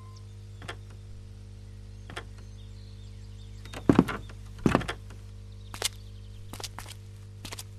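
Footsteps on a debris-strewn floor and a loose wooden board: two heavy thuds about four and five seconds in, with lighter knocks and crunches before and after, over a low steady drone.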